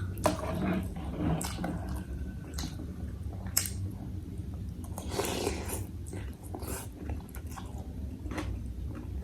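Close-miked eating of bakso meatball soup: chewing and small mouth and utensil clicks, with a longer slurp about five seconds in.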